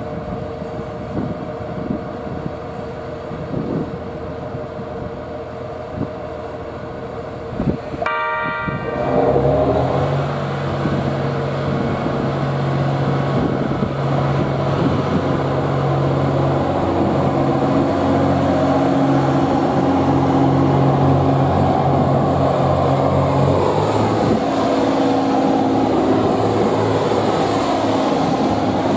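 JR East GV-E400 diesel-electric railcar idling with a steady hum. About eight seconds in it gives a short horn blast. Its diesel engine then revs up and the train pulls away, and the engine drone changes pitch near the end as the cars pass.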